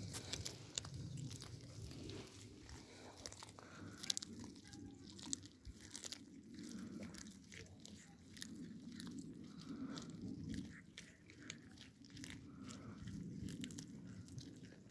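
Cats chewing small whole raw fish, with many short, sharp crunches as they bite through them.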